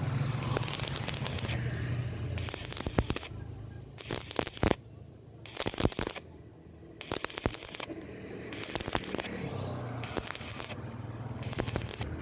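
Stick-welding arc crackling and sputtering with sharp pops, in several stretches broken by short pauses, over a low steady hum.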